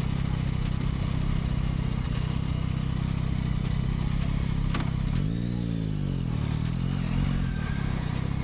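Motorcycle engine idling steadily, with a rapid high ticking over it. About five seconds in, a click, then the engine revs up and back down as the bike pulls away.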